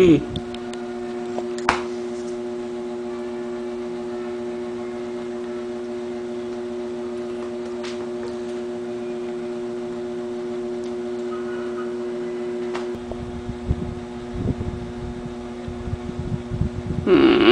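A steady two-tone electrical hum, with a single click about two seconds in and low uneven rumbling in the last few seconds.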